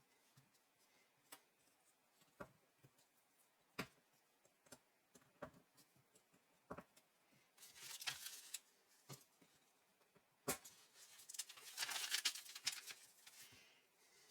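Faint, scattered clicks of plastic Lego Technic pieces being handled and fitted together. Two longer rattling, rustling spells come about eight seconds in and again from about eleven to thirteen seconds in.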